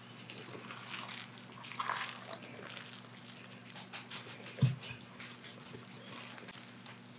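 Sticky scone dough being scraped out of a mixing bowl with a spatula: light scrapes, clicks and soft squishing, with one louder thump about halfway through. A faint steady low hum sits underneath.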